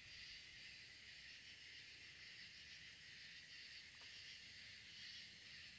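Near silence: a faint, steady background hiss, with one faint click about four seconds in.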